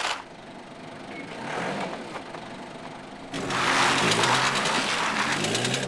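Aircraft tow tractor's engine running under load. About three and a half seconds in, a loud rushing, crunching noise sets in as its tyres spin on packed snow: the towed aircraft's wheels are frozen to the ground and will not budge.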